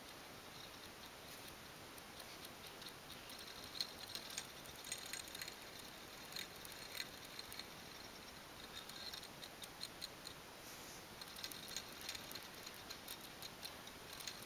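Homemade battery-powered coil motor making faint, irregular light clicking and ticking, its wire coil knocking in its paper-clip supports, with thicker clusters of clicks about four seconds in and again past the middle.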